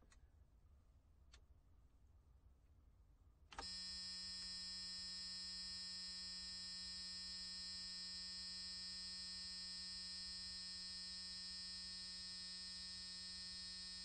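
An electric buzzer sounding one long, steady buzz of about ten seconds. It starts about three and a half seconds in and cuts off sharply at the end.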